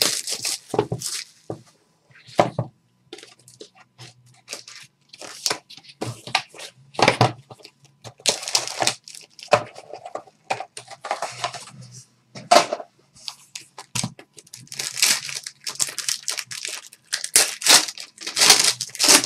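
Plastic shrink wrap and foil card packs being torn open and crinkled by hand, in many irregular bursts of tearing and rustling.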